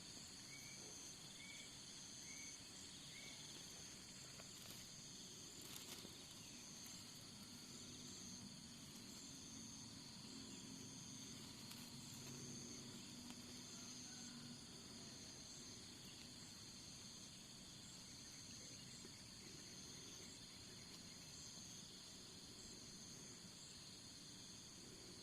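Faint, steady chorus of shrilling insects, with a bird repeating a short note about six times in the first few seconds.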